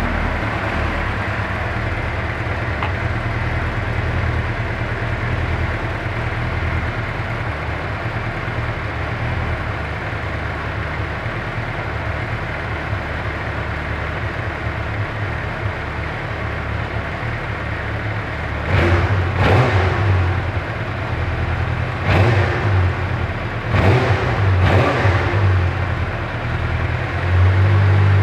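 2009 Suzuki GSX-R600's inline-four engine on its stock exhaust, idling steadily, then revved in about four short throttle blips in the last third.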